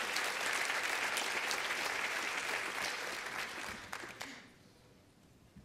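Audience applauding, a dense clatter of many hands clapping that dies away about four seconds in.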